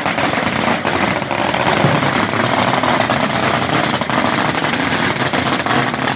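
String of firecrackers going off in a dense, rapid crackle of many small bangs.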